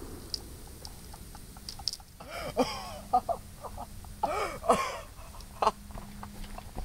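The noise of a works-bomb blast dies away. Then birds call from the pond: short calls that rise and fall in pitch, scattered irregularly from about two seconds in.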